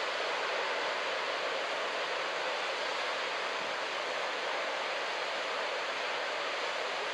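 Steady, even wash of breaking ocean surf at a beach break.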